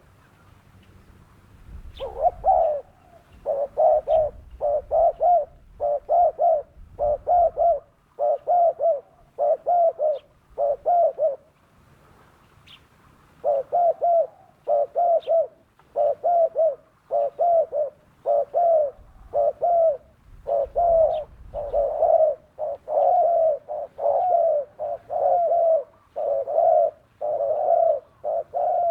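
Spotted dove (terkukur) cooing in a fast, steady string of repeated coo phrases, about one to one and a half a second, pausing briefly about halfway through before running on.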